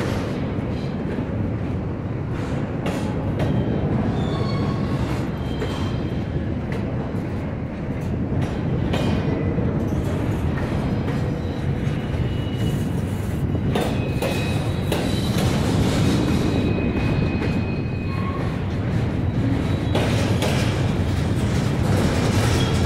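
Double-stack intermodal freight train's well cars rolling past: a steady rumble of steel wheels on rail, with scattered clicks and brief high wheel squeals now and then.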